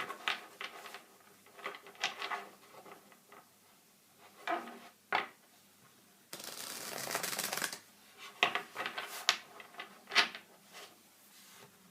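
Tarot cards being shuffled and handled: scattered sharp taps and flicks of the cards, with a longer run of shuffling lasting over a second about six seconds in.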